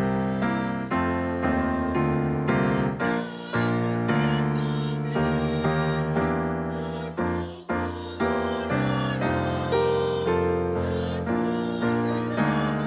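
Piano playing a slow piece, notes and chords struck and left to fade one after another, with a short break about eight seconds in.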